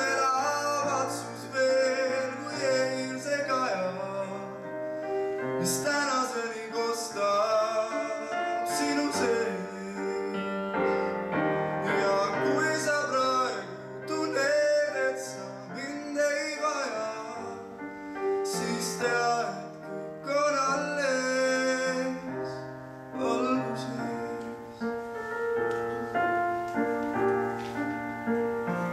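A young male singer sings a song solo into a microphone, accompanied by piano.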